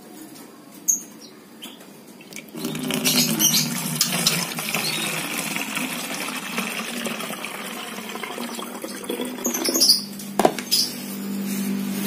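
Water poured from a plastic dipper into a plastic spray bottle, a steady splashing stream that starts a couple of seconds in and stops near the end, followed by a few sharp knocks.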